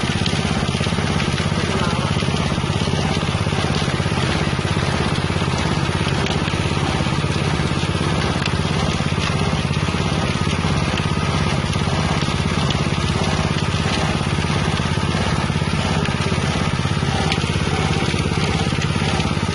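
Small 6.5 hp engine driving a wet herb and spice grinding mill, running steadily at constant speed, with a continuous grinding and crushing noise over the engine note.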